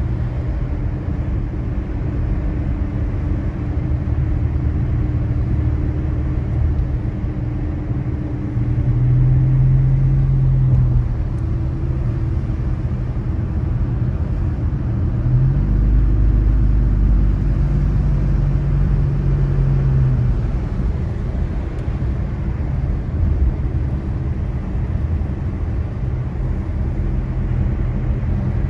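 Car driving, heard from inside the cabin: a steady low rumble of engine and road noise, with the engine hum changing pitch now and then, including a brief rise about fifteen seconds in.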